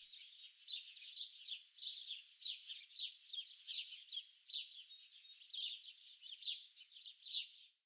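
Birds chirping and singing, a dense run of short, high, quick downward-sweeping chirps overlapping one another; the sound cuts off suddenly near the end.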